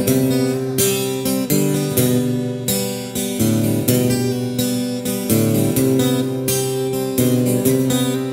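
Acoustic guitar strumming chords in an instrumental break, with the chords changing about every second.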